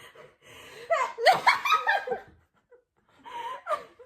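Young women laughing in a run of short, pitched bursts for about two seconds, with a shorter burst of laughter near the end.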